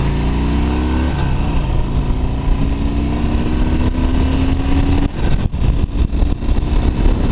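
Harley-Davidson Dyna's V-twin engine accelerating hard onto a freeway. Its pitch climbs, drops at a gear shift about a second in, then climbs again for several seconds. Near the end, wind buffeting on the microphone takes over.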